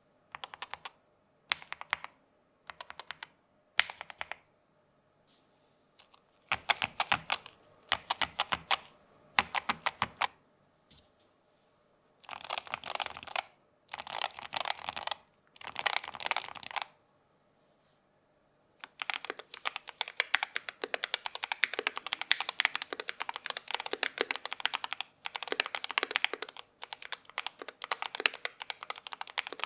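Typing on a Keychron K2 HE keyboard with magnetic switches: rapid key clicks in short bursts of about a second, separated by pauses. The last third is continuous fast typing.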